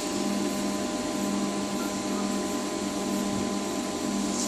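A 500W 220VAC telecom cabinet air conditioner running with its compressor and fans on, giving a steady whir with an even hum. The unit is already cooling.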